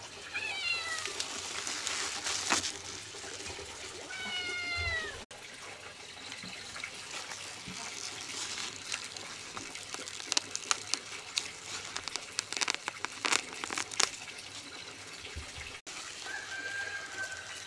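Two long falling animal calls, about a second each, over running or splashing water. Then comes a stretch of sharp clicks and clatter, and a short, steady, whistle-like call near the end.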